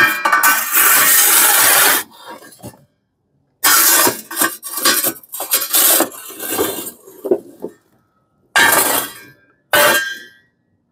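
Stainless steel coal shovel scooping ashed-over charcoal briquettes and dumping them on a pile. The briquettes clink and clatter against the shovel and each other in several separate scoops with short silent pauses between.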